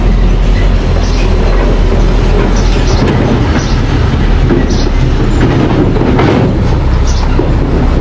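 Small crawler bulldozer at work: a steady low diesel engine rumble, with its steel tracks clanking and giving short squeals about once a second.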